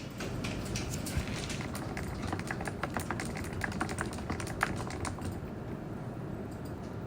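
Fast typing on a mechanical keyboard with hand-lubed low-noise switches, a quick irregular run of key clicks that stops a little after five seconds in.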